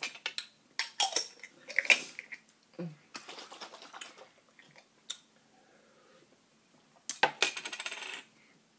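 Clinks and knocks of a glass drink bottle being picked up, handled and set back down on the table, with a quick run of rattling clicks near the end.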